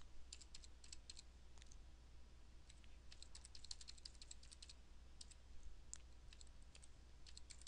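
Faint computer keyboard typing: quick runs of key clicks with short pauses between them, over a low steady hum.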